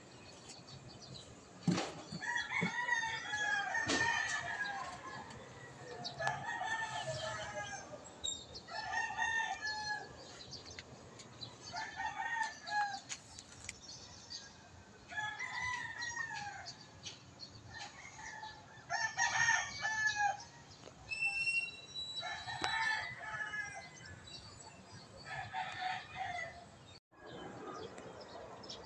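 Roosters crowing again and again, with chickens clucking in between. A couple of sharp knocks come near the start.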